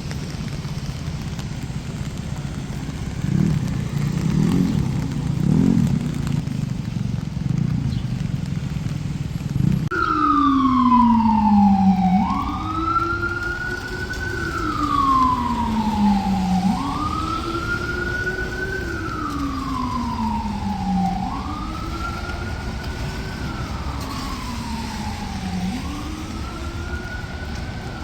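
Street traffic noise, then about ten seconds in an emergency vehicle siren starts up in a slow wail, its pitch sliding down and swooping back up about every four and a half seconds, easing off slightly near the end.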